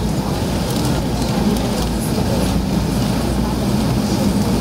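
Steady cabin noise inside an Airbus A380 taxiing, with a low steady hum from the engines running at low power under a constant rush of air.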